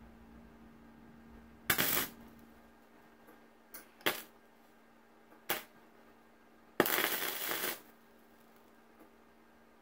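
MIG welder laying tack welds on a steel bonnet-brace section at a high amperage setting: four bursts of crackling arc, two brief blips between a short tack and a longer one of about a second near the end. A steady low hum runs underneath.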